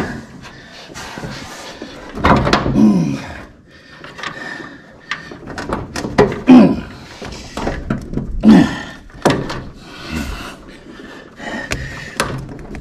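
Irregular knocks and clunks of a heater box housing being pushed and shifted against a car's firewall to line up its mounting studs, with a few short sounds that slide down in pitch.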